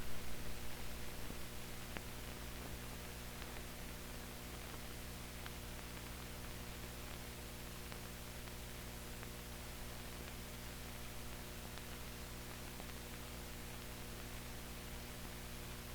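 Steady hiss and mains hum of an old film soundtrack with no program sound, with a few faint clicks. A louder pulsing sound fades away over the first two seconds.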